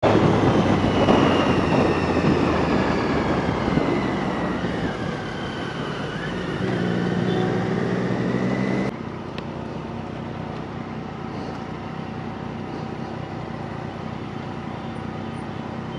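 Motorcycle engine running under way, mixed with wind and road noise. Its pitch rises and falls with speed through the first half. About nine seconds in it cuts to a quieter, steady engine and road noise.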